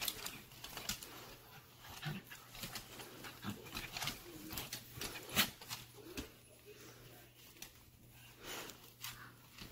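Two dogs play-wrestling: scuffling with short dog noises and scattered clicks and knocks, the loudest about halfway through. It quietens in the last few seconds.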